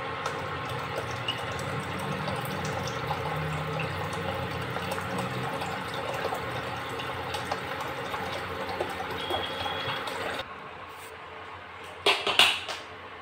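Water pouring into a saucepan of boiling lentils, a steady splashing and bubbling that drops away about ten seconds in. A few sharp clatters of metal against the pan follow near the end.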